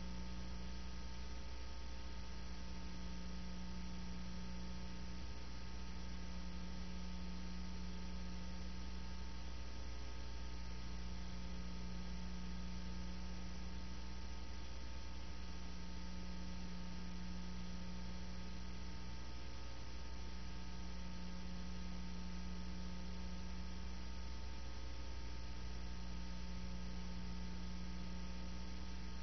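Steady electrical mains hum with a ladder of buzzing overtones, a low tone in it swelling and dipping every four or five seconds. No sound of the train itself is heard.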